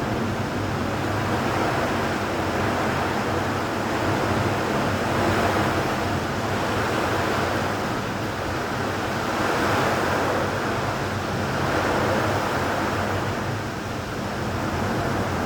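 Steady rushing noise of wind and rain in a thunderstorm, swelling and easing gently every few seconds.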